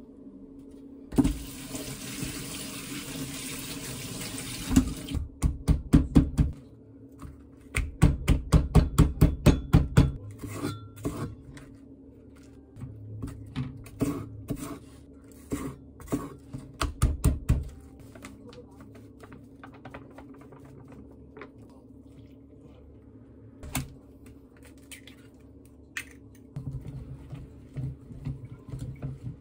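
A kitchen tap runs for a few seconds over napa cabbage leaves in a metal strainer. Then a cleaver strikes a wooden cutting board in quick runs of about four strokes a second, scoring the cabbage leaves. Near the end a wire whisk beats flour batter in a glass bowl.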